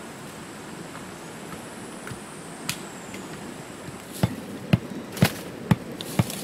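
Wooden stake being driven into the ground by blows from the back of a machete: five sharp knocks about half a second apart, starting about four seconds in after steady outdoor background noise.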